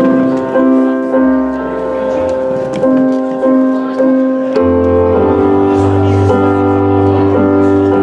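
Live band playing with a Roland stage piano, electric bass and electric guitar through amps, striking a new chord about every half second. The low end gets much heavier about halfway through.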